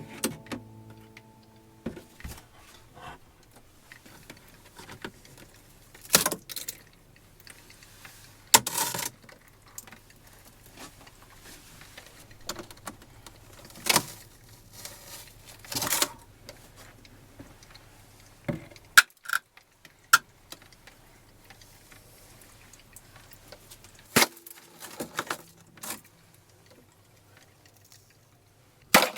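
Scattered clinks, knocks and rattles of small hard household items being handled and put away, each a short sharp sound. The loudest comes right at the end.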